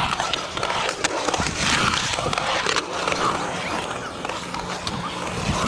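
Skateboard wheels rolling over a concrete bowl: a continuous rolling rumble with scattered sharp clicks and clacks.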